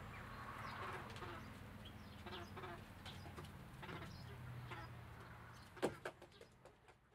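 Young chickens giving soft, repeated clucks and short peeps over a low steady hum. Just before the end there is a sharp knock as the pullet hops down off its wooden perch, then everything fades out.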